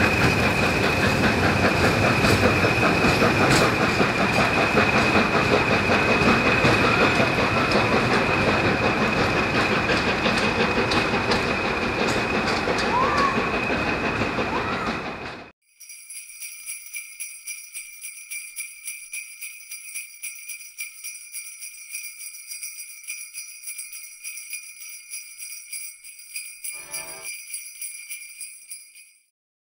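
A train running on the rails, a dense rumbling clatter with a steady high whine over it, cut off abruptly about halfway through. Then a quieter jingle of sleigh bells, with a brief low sound near the end.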